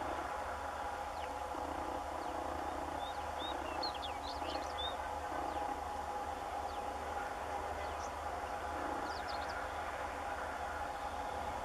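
Steady distant drone of EMD WDG4 and WDP4D diesel locomotives heading a train from far off. Birds chirp a few times over it, about three to five seconds in and again near nine seconds.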